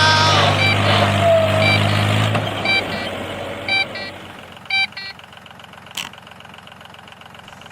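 A vehicle engine running with a short repeating beep about once a second, like a reversing alarm; the engine fades out about two and a half seconds in while the beeps go on.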